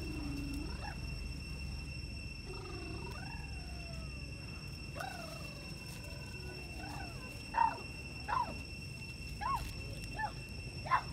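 Newborn long-tailed macaque crying: high, falling whimpers and squeals, then short sharp squeaks about once a second near the end, the loudest of them.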